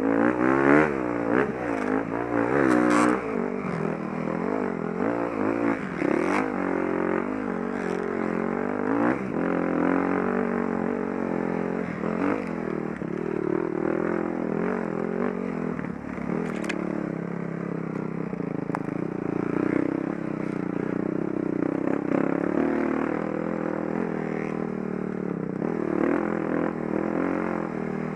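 Enduro dirt bike engine revving up and down quickly as the throttle is worked, then running at steadier revs from about ten seconds in, with some clattering from the bike.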